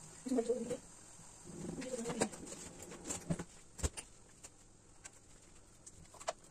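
A bird cooing in two low phrases in the first two seconds, followed by a few scattered knocks and clicks, the sharpest a knock about four seconds in.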